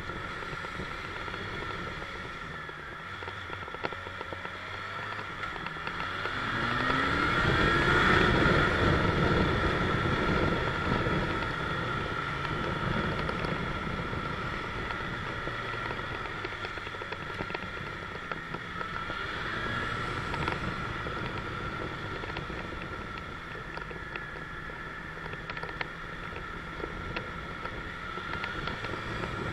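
Motorcycle engine running under way in traffic, rising in pitch as it accelerates about seven seconds in and again, more gently, around twenty seconds in.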